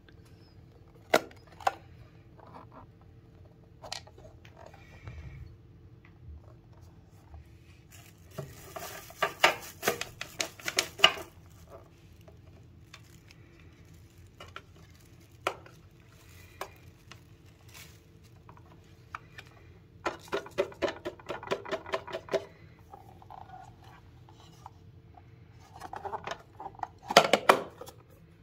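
Hard objects being handled: scattered single clicks and knocks, with three bouts of quick clattering and rattling, over a faint steady hum.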